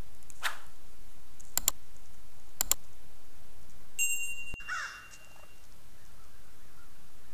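Sound effects of an animated subscribe button: a soft swish, two sharp double mouse clicks and a bright chime. Just after a cut comes a short sound falling in pitch, under a second long.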